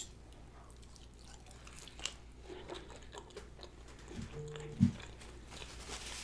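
A person chewing and biting food close to the microphone, with soft wet mouth clicks. A brief low hum comes a little past four seconds in, followed by a louder short knock.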